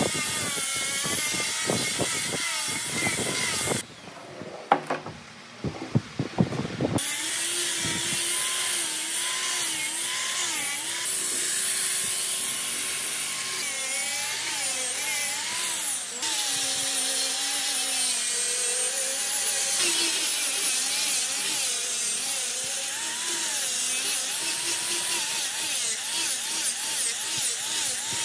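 Handheld angle grinder with a sanding pad running against wood, its motor whine rising and falling in pitch as it is pressed and moved over the surface. About four seconds in it stops for roughly three seconds, with a few sharp knocks, then runs and sands again.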